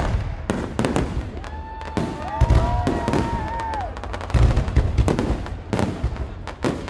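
Aerial fireworks display: a rapid, irregular series of shell bursts with booms and dense crackling between them.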